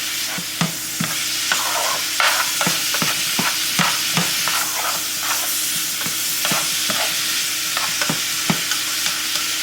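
Steak strips and peppers sizzling in a hot skillet, with a steady frying hiss and short, irregular scrapes of stirring against the pan every half second or so.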